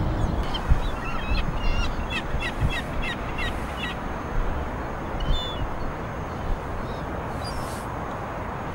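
Steady wind noise, with a quick run of short high bird calls between about one and four seconds in and a few more calls later.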